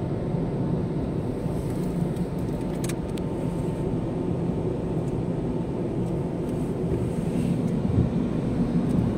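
Automatic car wash's rotating cloth brushes and machinery running against the car, heard from inside the cabin: a steady low, dense swishing noise. A dull thump about eight seconds in.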